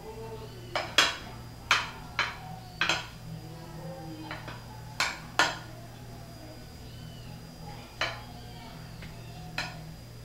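A spoon clinking and knocking against a glass baking dish about ten times at irregular intervals while spreading batter, over a steady low hum.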